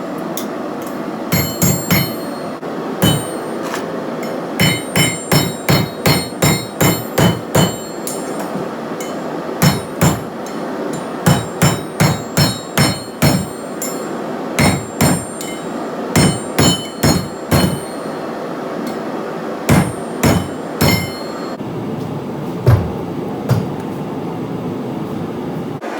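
Hand hammer striking hot flat steel on an anvil in runs of blows, about two a second, with a metallic ring after many strikes, as the steel is forged and folded in half lengthwise. A steady rushing noise runs underneath.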